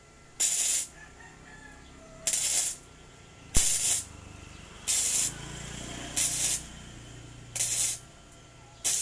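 Gasless (flux-core) MIG welder laying a string of short tack welds: about seven brief crackling hisses of the arc, each under half a second, with a second or so between them. The welding goes in short spots because the thin tubular steel would burn through under a continuous bead.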